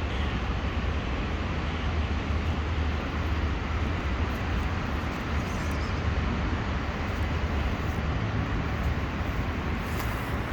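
Steady background noise: a constant low rumble with an even hiss over it, with no distinct events.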